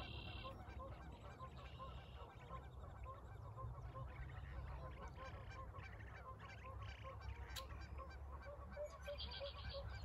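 A flock of geese honking over and over, many calls overlapping, with a steady low rumble underneath. A small bird chirps briefly at the start and again near the end.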